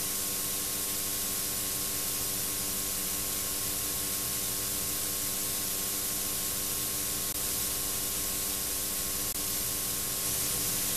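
Steady hiss with a faint hum underneath: the background noise of a VHS tape transfer, with no other sound.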